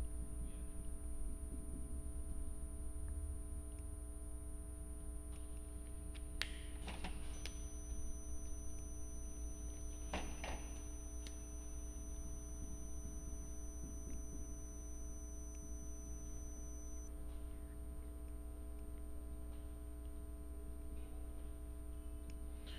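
Steady low electrical hum, a mains hum in the recording, with a few faint brief scrapes between about six and eleven seconds in.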